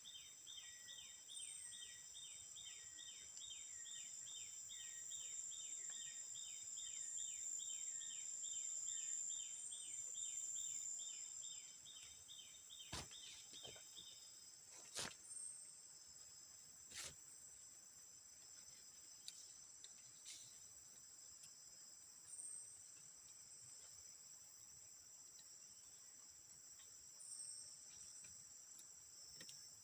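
Insects chirring steadily in the forest, with a rapidly repeated call about two or three times a second that stops about halfway through. Three sharp clicks or knocks near the middle.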